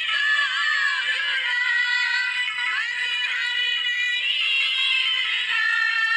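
A group of women singing a song together into microphones, their voices carried over a sound system in a steady, continuous melody.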